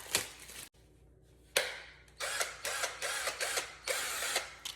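A sharp clack, then a run of quick mechanical whirring and clicking bursts, rising and falling several times, from one of the pink tools being handled.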